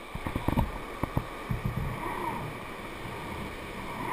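Knocks and bumps of hands handling a fishing rod and overhead reel close to the microphone, over a steady wash of surf and wind. Most of the knocks come in the first two seconds.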